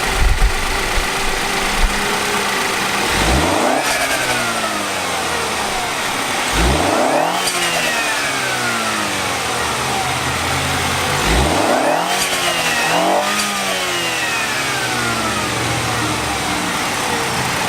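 2017 BMW X1 xDrive28i's 2.0-litre turbocharged four-cylinder idling and being revved about four times, the last two revs close together, with a K&N air filter newly fitted in the air box.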